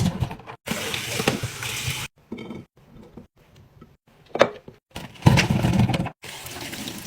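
Restocking sounds of packaging rustling and items clinking and knocking as they are handled and set in place, cut into short segments that start and stop abruptly.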